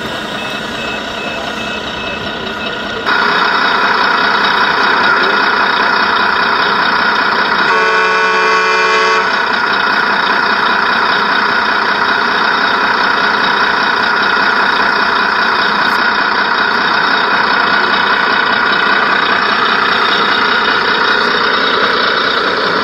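Steady truck running sound from a radio-controlled model fire engine, getting louder about three seconds in, with one horn blast lasting about a second around eight seconds in.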